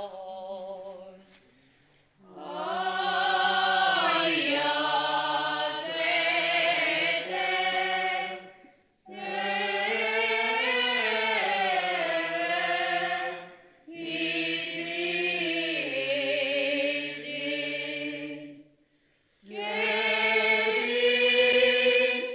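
Byzantine-rite liturgical chant for the Theophany, in the local Arbëreshë tradition of Piana degli Albanesi, sung unaccompanied by a group of voices. It comes in four phrases, each ending in a short breath pause, and a low note is held steady beneath the moving melody.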